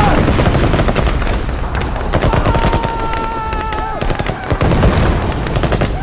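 War sound effect of rapid, continuous machine-gun and rifle fire with deep booms underneath. About two seconds in, a long held high tone rises over the gunfire for about a second and a half.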